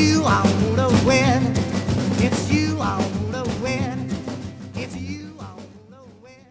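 Closing bars of a rock-and-roll song, fading out steadily over the last few seconds.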